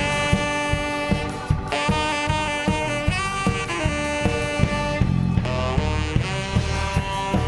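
Upbeat instrumental music: a saxophone melody over a steady drum beat and bass.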